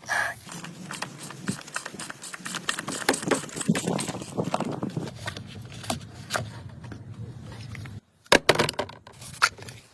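Irregular clicking and scraping of metal tools and parts being handled while servicing a car's oil system, with a brief gap about eight seconds in followed by a few sharp clicks.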